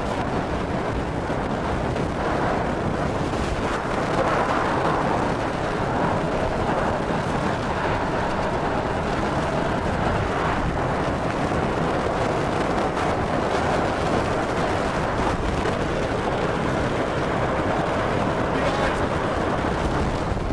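Category 4 hurricane winds with driving rain, buffeting the microphone: a loud, unbroken rush of wind noise that holds steady.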